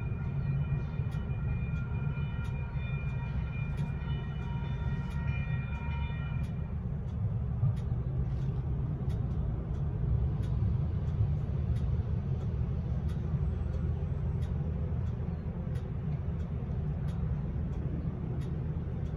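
Railroad crossing signal bell striking at a regular beat while a Siemens-Duewag U2A light rail train passes with a steady low rumble. A high, steady ringing tone sounds over it and stops about six seconds in.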